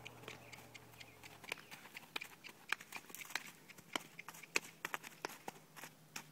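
Young filly trotting under a rider on sand footing: a faint, irregular run of hoofbeats and clicks, several a second.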